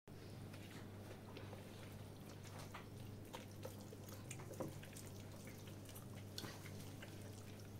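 Faint wet squelches and clicks of hands rubbing marinade into whole raw chickens, over a steady low hum.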